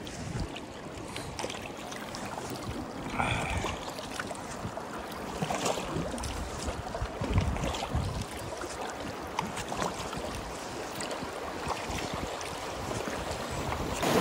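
River water rushing and splashing around a packraft being paddled downstream, with irregular paddle strokes in the water.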